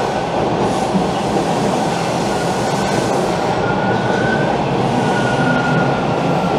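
TTC T1 subway train pulling into the station along the platform: a steady, loud rumble of wheels on rail, with a thin high squeal that wavers slightly in pitch.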